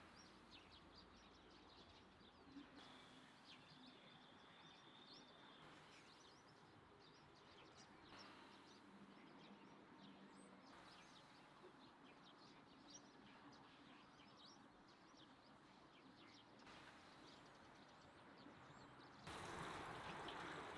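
Faint outdoor ambience with many small birds chirping. About a second before the end, water starts running from a wall-fountain tap as hands are washed under it.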